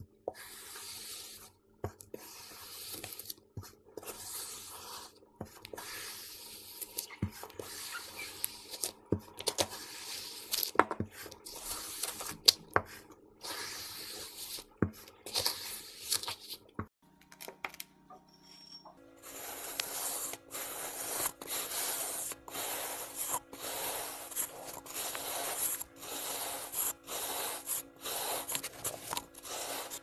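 Kinetic sand scooped with a metal ice-cream scoop: a run of soft crunching and scraping strokes with sharp clicks. After a short break a little past halfway, a denser, even run of slicing strokes, about two a second, as a knife cuts through kinetic sand.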